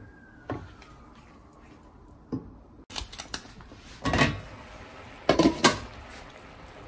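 Wooden spatula knocking against a stainless steel pan while stirring, then a glass pan lid lifted and put down with loud clanks about four seconds in and again around five and a half seconds.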